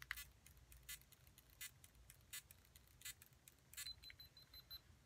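Faint, regular swishes about every three-quarters of a second, a brush drawn through long wet hair, with a faint high beeping near the end.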